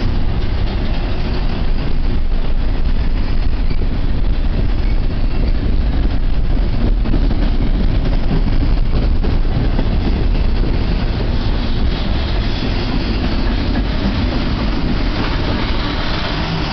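Double-stack intermodal freight train's well cars rolling past close by: a loud, steady rumble of steel wheels on rail with scattered clicks.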